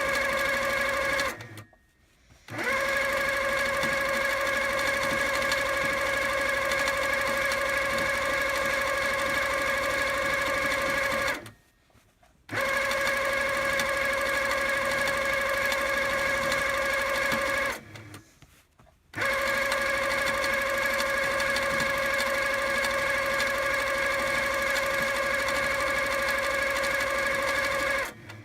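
Handi Quilter Sweet Sixteen sit-down longarm quilting machine running steadily while free-motion stitching, a steady hum with a fixed whine. It stops for about a second three times, about two seconds in, near the middle and about two-thirds through, and again at the very end.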